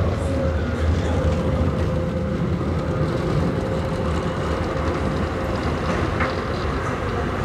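Alstom TFS low-floor tram running past close by on street track, its rail and running noise over a steady background with a held tone.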